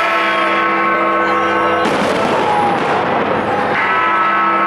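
Fireworks display banging and crackling over a crowd's voices, with loud show music holding sustained chords that break off about two seconds in and return near the end.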